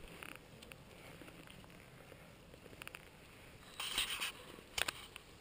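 Mountain bike rolling over a grassy, stony trail: mostly faint, with a brief rattle of the bike about four seconds in and a couple of sharp clicks near the end.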